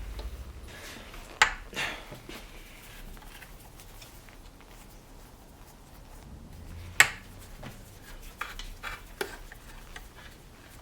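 Metal tools and parts clinking and knocking now and then during hand disassembly work, with the sharpest clink about seven seconds in.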